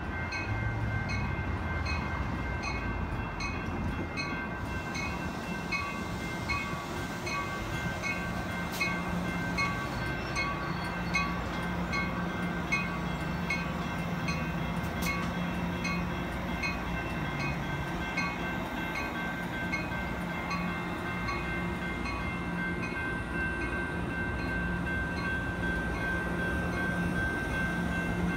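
Amtrak Pacific Surfliner train rolling slowly through a station, its bilevel coaches rumbling past. A bell rings steadily about twice a second throughout.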